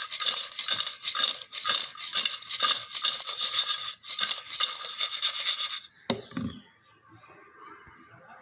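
Rapid, rhythmic scraping, several strokes a second, like a utensil scraping and stirring in a metal pan or bowl; it stops about six seconds in, followed by a single soft thump.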